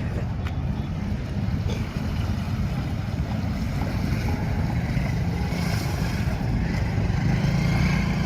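Royal Enfield Himalayan 450's single-cylinder engine running as the motorcycle wades through a river, with water rushing and splashing around it. The sound grows slightly louder toward the end.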